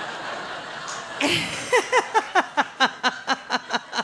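Audience laughing at a belch. About a second and a half in, one person breaks into a hearty laugh, a rapid run of short "ha" pulses, about five a second, each dropping in pitch.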